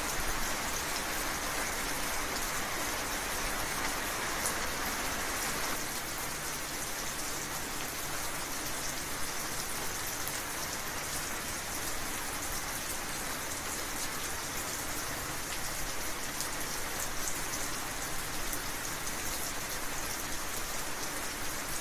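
Steady rainfall: dense hiss of rain with the patter of individual drops hitting surfaces, no thunder. The mid-range hiss eases slightly about six seconds in.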